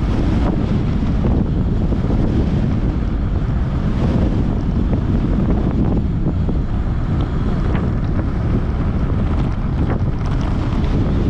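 Wind buffeting the microphone of a camera on a moving electric bike: a loud, steady low rumble of rushing air.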